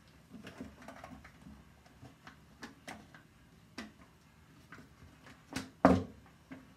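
Irregular plastic clicks and knocks from a Potette Plus 2-in-1 folding travel potty as it is handled and its legs are folded, with a louder double knock near the end.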